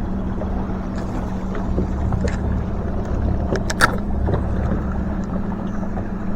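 Boat motor running with a steady low hum, with small scattered clicks and one sharp click about four seconds in.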